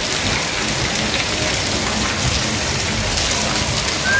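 Steady rain pouring down on the street and rooftops, a dense, even hiss.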